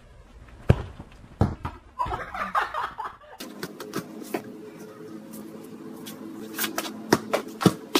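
Sharp thuds of a football being kicked, with faint voices. About three and a half seconds in, a steady drone of held tones starts under a string of sharp knocks that come quicker near the end.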